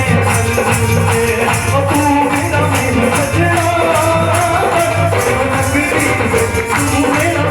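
Bhajan (Hindu devotional song) music with a steady bass line and evenly repeating high percussion strokes under a melody line.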